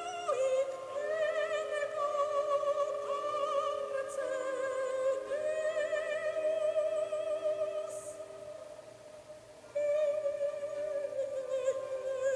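Film score: a high operatic voice singing slow, long-held notes with a wide vibrato over steady sustained chords. The voice drops back for a moment about two-thirds of the way through, then comes in again louder.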